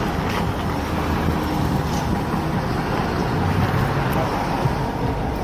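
A heavy vehicle's engine running steadily, with a low, even hum, while a crane lifts a transformer.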